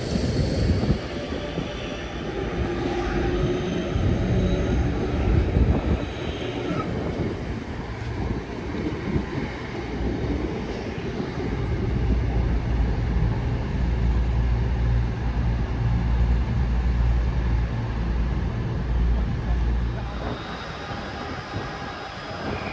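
Two coupled Class 323 electric multiple units pulling away from a station and running past, a continuous rail rumble that grows heavier and deeper about halfway through.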